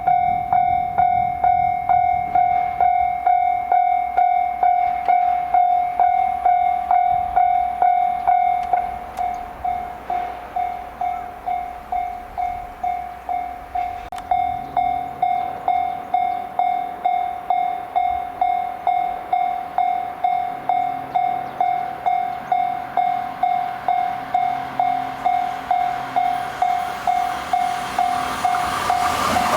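Japanese railway level crossing's electronic warning bell ringing: a steady, fast 'kan-kan' chime at a little over two strikes a second, warning of an approaching train. Near the end the rushing noise of the train arriving swells in.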